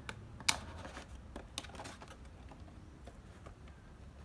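A few light plastic clicks and taps as a plastic toy gel blaster pistol is handled, the sharpest about half a second in, over a low steady hum.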